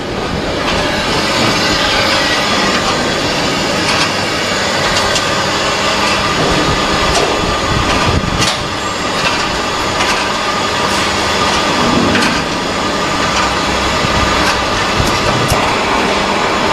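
Plywood production line machinery running: motors and chain-conveyor drives make a steady, dense clatter with scattered sharp clicks.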